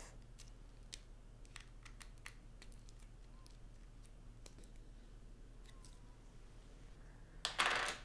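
Faint, scattered small clicks of a magnetized Torx screwdriver and tiny metal screws as the four screws of a GoPro Hero 9's mount base are worked out, with a brief louder rustle near the end.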